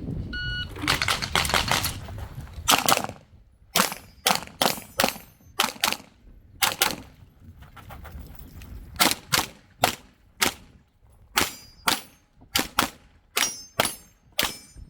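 Pistol shots fired in quick strings of two to four, about two dozen in all, with a pause of about a second and a half midway, as a shooter works through a USPSA stage.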